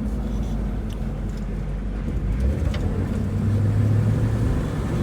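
A 1964 Ford Thunderbird under way: its 390 V8 runs steadily beneath the rumble of the road and tyres. The low engine hum changes pitch about halfway through.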